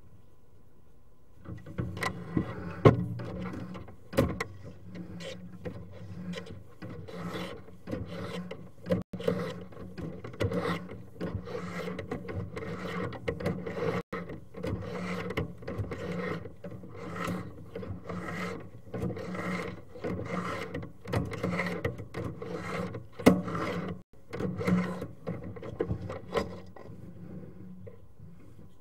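Sewer inspection camera's push-rod cable being pulled back out of the drain line and fed onto its reel: repeated rubbing and scraping strokes, somewhat more than one a second, with a few sharp clicks.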